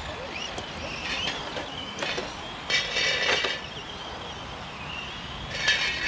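Electric RC touring cars running laps: high motor whine that rises and falls as they speed up and slow down, with a few light clicks and two louder raspy bursts, about three seconds in and near the end.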